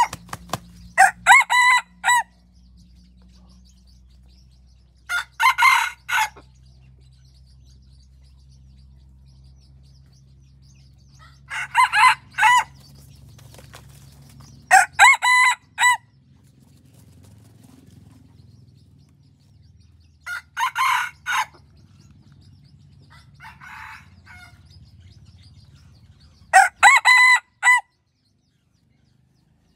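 Hybrid junglefowl decoy rooster crowing: a short crow of a few notes, repeated every few seconds about seven times, with one fainter crow about two-thirds of the way through.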